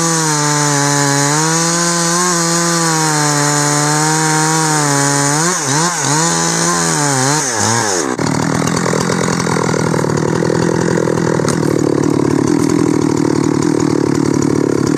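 Two-stroke Husqvarna chainsaw cutting into the trunk of a large oak, the engine running under load at a fairly steady pitch. Around the middle its pitch swings quickly up and down for a couple of seconds. From about eight seconds in, a rougher, noisier cutting sound takes over.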